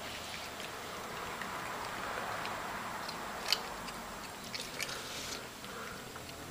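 Room background noise with scattered light clicks and taps, one sharper click about three and a half seconds in.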